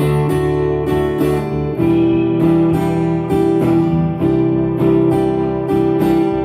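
Acoustic guitar strummed in a steady campfire rhythm pattern through the chords Em7, Cadd2, G and D, about three strums a second, with a chord change just under two seconds in.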